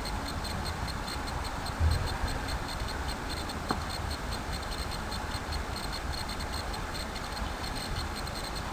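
Background room tone: a steady hiss with a faint fast regular ticking behind it, a soft low bump about two seconds in and a single light click a little before the middle.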